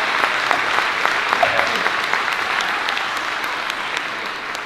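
Audience applauding, the clapping slowly fading out.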